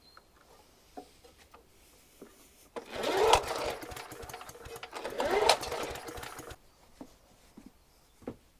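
Two pulls on the recoil starter of a Hayterette lawn mower's petrol engine, about two seconds apart. Each spins the engine over for a little over a second with a rising whir, and it does not fire: the engine has no spark.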